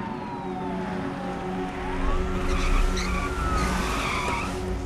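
Police car sirens wailing in slow glides, falling and then rising again, as police cars pull up. From about two seconds in, engines rumble and tyres squeal, over a low steady hum.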